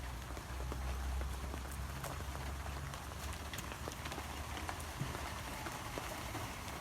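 Steady rain falling, with scattered sharp ticks of individual drops and a low rumble underneath, stronger in the first few seconds.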